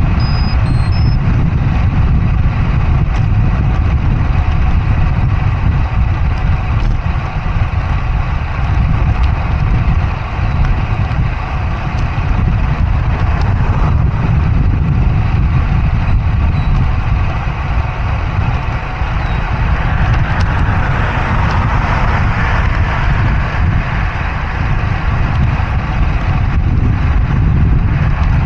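Wind rushing over a small action camera's microphone on a moving road bike: a loud, steady low rumble with a hiss on top, swelling for a few seconds about twenty seconds in.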